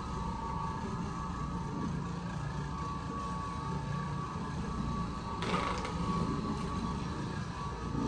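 Oreck Orbiter orbital floor machine running steadily as its pad scrubs carpet during very-low-moisture cleaning: a constant motor drone with a steady whine, and one brief louder burst of noise about five and a half seconds in.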